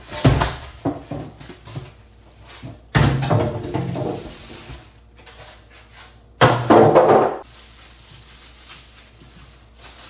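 Unpacking noises: white foam packing inserts scraping and knocking as they are pulled off a coffee maker and tossed aside. There are three loud bursts about three seconds apart, with lighter handling noise between them.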